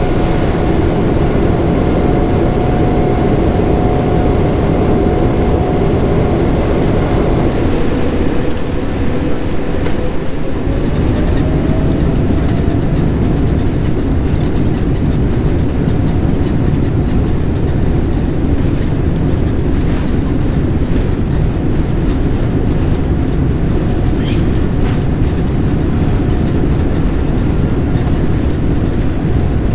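Airliner turbofan engines at takeoff thrust heard from inside the passenger cabin: a loud, steady roar with deep rumble and whining tones, one of which rises in pitch about a third of the way in.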